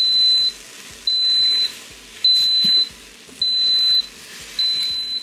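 Electric pressure cooker's beeper sounding five high-pitched beeps, each about half a second long and a little over a second apart, while the pot runs hot on its sauté setting.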